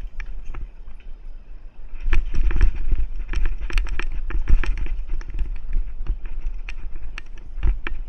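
Mountain bike rattling and clattering along a dirt singletrack, with many irregular sharp knocks from the bike over the trail and a strong low rumble on the microphone. Quieter for about the first two seconds, then busier and louder.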